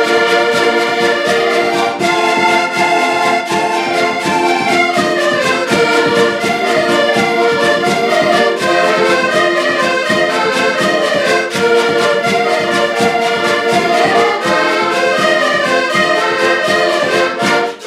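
Several diatonic button accordions playing a lively folk tune together in chords, with a bass drum beating a steady rhythm underneath.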